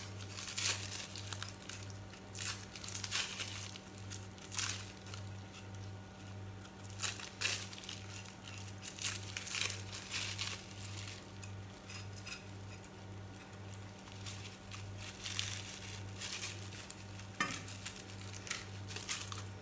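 Dry onion skin crinkling and crackling as it is peeled off a whole onion by hand, in short, irregular rustles.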